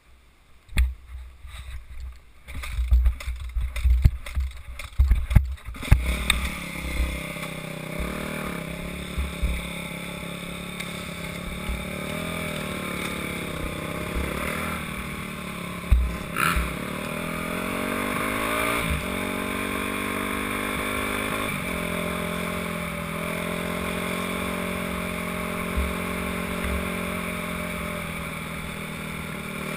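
Dirt bike engine heard through a helmet-mounted camera, running from about six seconds in, its pitch climbing and dropping several times with throttle and gear changes. Before that there are only low thumps and knocks on the microphone.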